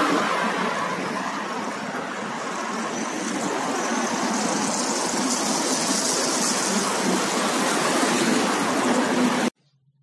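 Steady outdoor street noise of passing road traffic, a broad hiss that swells slowly and then cuts off suddenly near the end.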